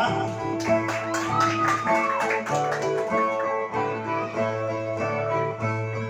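Brazilian violas (steel-strung folk guitars) strummed and plucked in a repeating rhythmic figure. This is the instrumental baião de viola played between the repentistas' sung verses.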